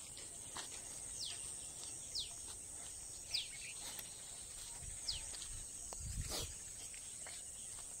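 Faint background ambience: a steady high-pitched insect drone with a bird's short falling call notes repeating every second or so, and a soft low thump about six seconds in.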